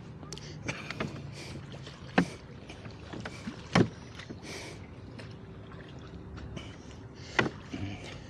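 Water splashing and lapping around a small boat, with three sharp knocks about two, four and seven seconds in.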